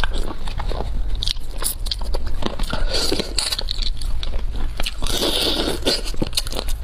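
Close-miked eating of cooked hermit crab: biting and crunching through the shell, with many sharp cracking clicks and a couple of longer wet stretches, over a steady low hum.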